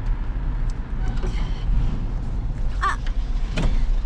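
Steady low rumble of a motor vehicle, with a short squeak just before three seconds in and a sharp click about half a second later.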